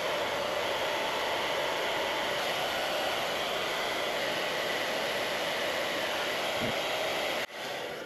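Handheld hairdryer blowing steadily, heating the plastic lens on a gear shifter cover to loosen its glue. It cuts off suddenly about seven and a half seconds in, followed by a few light clicks.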